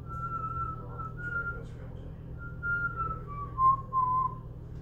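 A man whistling a slow tune, with held notes that step up and then drift down near the end.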